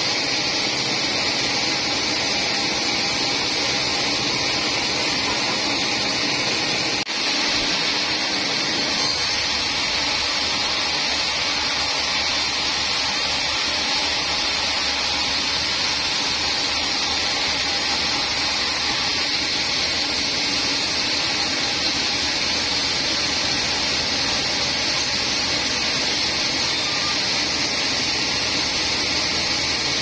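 Band sawmill running steadily, its blade sawing through teak wood.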